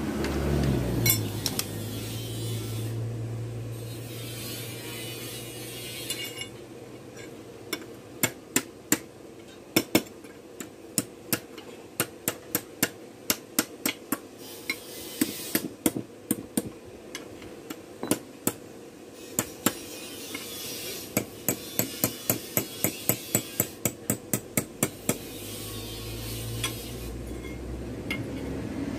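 Hand hammer striking a small metal piece on a bench anvil: runs of sharp metallic taps, about two to three a second, in several bursts with short pauses, as the part is shaped by hand. A low hum sounds in the first few seconds and again near the end.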